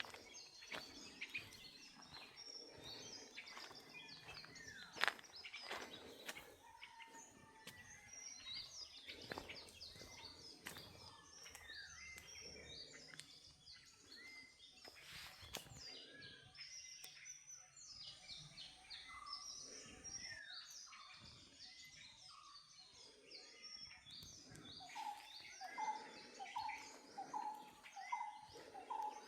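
Many small birds chirping and twittering together in short overlapping calls. Near the end a lower, rising call repeats about twice a second, and a single sharp click comes about five seconds in.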